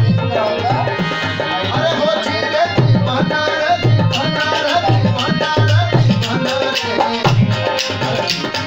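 Rajasthani folk music accompanying a puppet dance: a hand-drum beat of about two strokes a second under a wavering lead melody.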